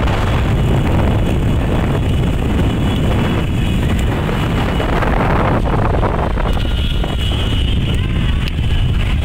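Heavy wind buffeting the microphone over the steady rumble of a motor vehicle's engine, as from a phone filming from a vehicle moving alongside the race.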